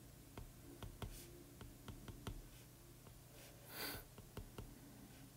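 Stylus tip tapping and writing on a tablet's glass screen: faint irregular clicks as the strokes of a chemical structure are drawn. A short soft hiss a little under four seconds in.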